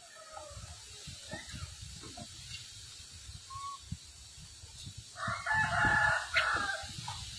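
A rooster crowing once, a call of about a second and a half starting about five seconds in, over a low rumble.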